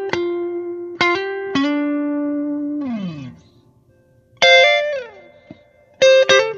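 Background music on a plucked guitar: single ringing notes, two of them sliding down in pitch, a short pause in the middle, then quicker picked notes near the end.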